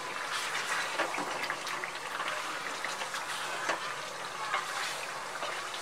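A spatula stirring a thick chicken curry in a frying pan on the heat, with a steady sizzle and scattered scrapes and taps of the spatula against the pan.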